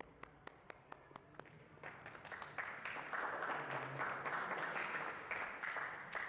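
Hand clapping: one person claps about four times a second for a second and a half, then a group joins in with applause that dies away near the end.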